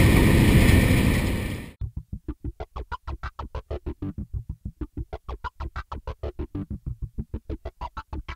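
Background music: a loud, dense mix cuts off just under two seconds in. It gives way to a rapidly pulsing synthesizer chord, about seven pulses a second.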